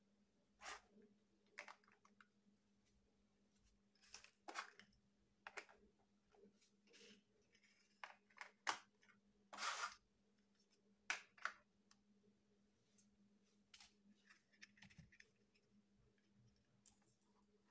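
Large hollow plastic building bricks clicking and clacking as they are handled and pressed onto a stack, in scattered short irregular knocks, the loudest a little past halfway.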